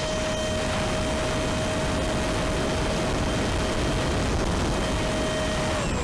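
Brushless electric motor and propeller of an RC flying wing running at steady high throttle, a constant whine over heavy wind rush on the onboard camera's microphone. The whine drops to a lower pitch just before the end.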